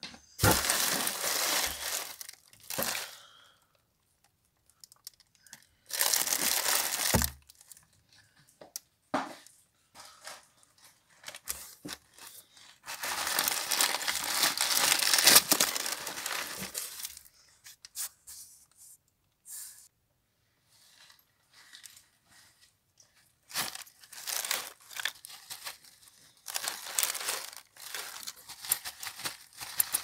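Plastic bags and paper crinkling as they are handled in a cardboard box, in separate bursts of a second or two. About 13 seconds in, a longer, louder stretch of several seconds: the vacuum cleaner bag being emptied, its dust and debris rustling out into the box.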